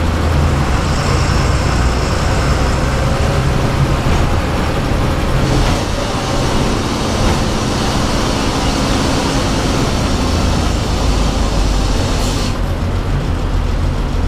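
Bus engine running steadily, heard from the driver's cab as the bus moves slowly in heavy traffic, with a constant low drone and road noise.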